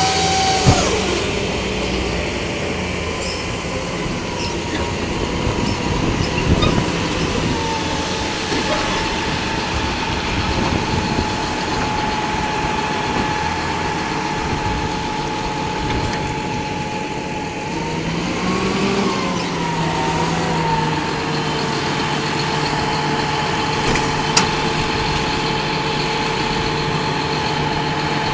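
Tractor diesel engines running steadily, from a John Deere 7930 and other farm tractors, with a steady engine whine. The pitch rises and falls briefly about two-thirds of the way through.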